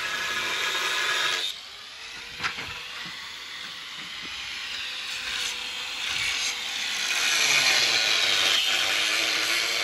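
Angle grinder with a cut-off disc cutting through a steel exhaust pipe. The grinding eases about a second and a half in, leaving the disc spinning with a steady whine, then bites in again and gets louder from about seven seconds.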